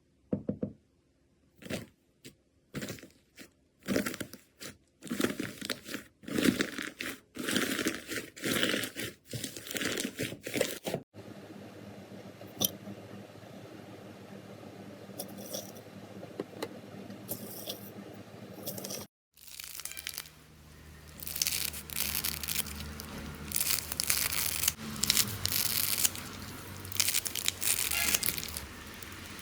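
Slime being squeezed and pressed by hand, giving crackling, crunchy bursts. For the first ten seconds the bursts come in quick separate squishes. After that comes a quieter stretch with a low hum and a few faint clicks, and about two-thirds in the crackling resumes as denser, continuous rubbing.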